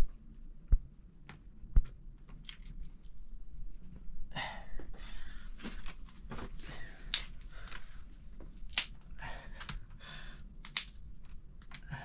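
Dry twigs and sticks rustling and snapping as they are handled, broken and pushed into a mud hearth, with several sharp cracks spread through.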